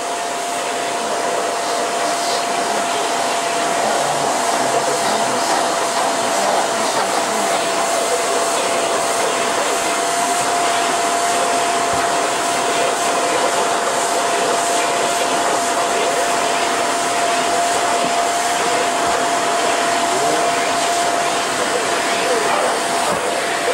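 Vacuum cleaner running steadily: an even rush of air with a steady motor whine.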